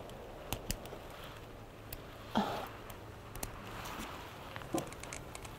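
Light clicks and handling noise as a string of party lights is hooked onto the tent's ceiling, with one brief louder sound about two seconds in.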